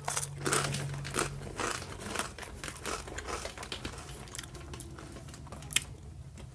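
Irregular rustling and crinkling handling noise with scattered clicks, one sharper click near the end.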